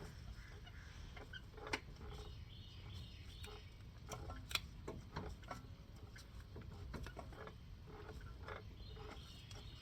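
Brake caliper piston compression tool being screwed in against an old pad to push the caliper piston back: scattered light clicks and ticks of metal on metal, with two sharper clicks about two and five seconds in.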